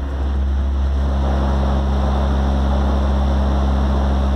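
Four Xion subwoofers driven by a Xion X9 5.5K amplifier playing a single loud, steady, very deep bass tone: a car-audio SPL (sound pressure level) competition burst, heard from outside the sealed car.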